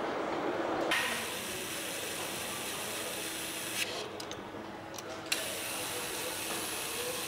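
Handheld powered nutrunner driving the centre bolts of a V8 engine's flywheel, a ratcheting mechanical sound with a few sharp clicks after the middle.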